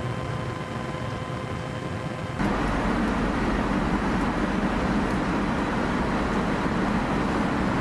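Steady in-flight aircraft noise: jet engine and airflow drone with a faint steady hum. About two and a half seconds in it jumps to a louder, fuller rushing drone.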